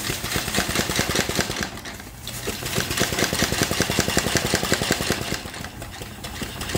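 Small antique single-cylinder horizontal steam engine (2.5-inch bore, 3-inch stroke) running on steam from a small boiler, with a fast, even chuffing of its exhaust beats mixed with steam hiss. The beat dips briefly about two seconds in, then picks up again.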